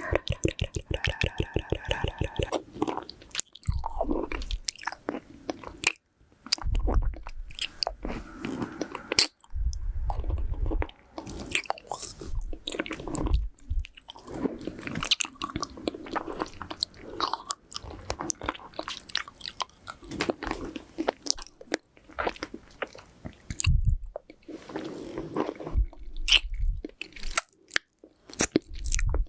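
Close-miked mouth sounds of eating a hard-candy lollipop: rapid wet clicks, sucking and crunching of the candy. Several times, gusts of nose breath blow straight onto the microphone.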